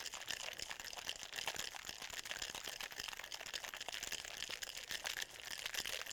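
Ice cubes rattling and clattering inside a Boston shaker, a mixing glass sealed into a metal tin, shaken hard to chill and mix a cocktail. It is a fast, continuous rattle.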